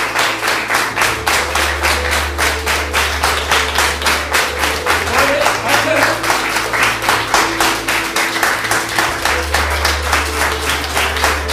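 Audience applauding, clapping together in a steady beat of about four or five claps a second.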